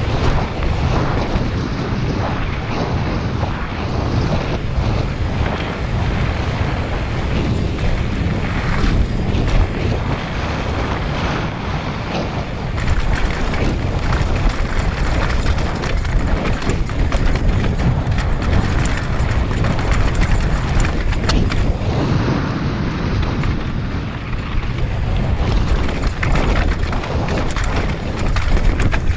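Wind buffeting the microphone on a downhill mountain bike at speed, with the tyres and frame rattling and knocking continually over a rocky, stone-pitched trail.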